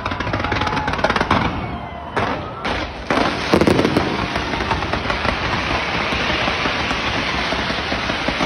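Fireworks going off in a dense, continuous crackling barrage, with a short lull about two seconds in before the crackle starts up again.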